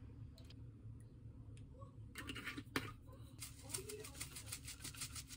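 Quiet at first, then a sharp click, then quick, rapid ticking as a shaker bottle of Korean red pepper powder (gochugaru) is shaken over a dish of soy dipping sauce.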